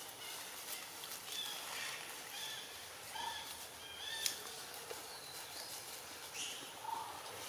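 Forest ambience: scattered short bird chirps over a steady high hiss, with one sharp click a little past four seconds in.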